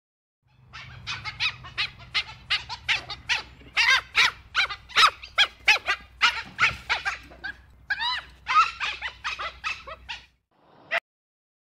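Dhole calling: a rapid run of short, high-pitched squeaky calls, about three or four a second, many rising and falling in pitch. The run stops about ten seconds in, and one more call follows near the end.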